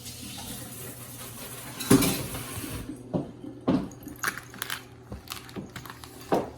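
Kitchen tap running for about three seconds, then dishes and utensils clinking and knocking.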